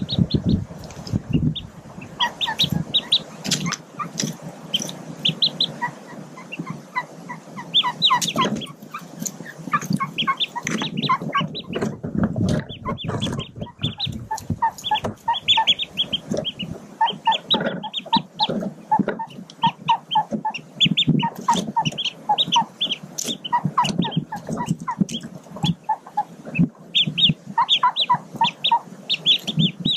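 Mallard ducklings peeping continuously: short, high peeps in quick runs, over low rustling as they move through the dry leaves and twigs of the nest.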